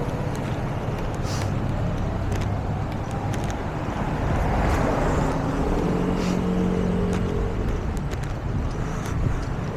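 City street traffic, with a vehicle passing close about halfway through, followed by a steady humming tone for a second or so.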